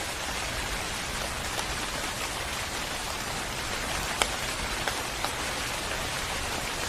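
Steady rain falling on surfaces, an even hiss with a few sharper drips standing out, the loudest about four seconds in.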